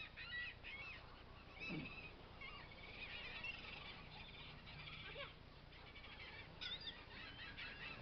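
A flock of birds calling, faint, with many short high calls overlapping.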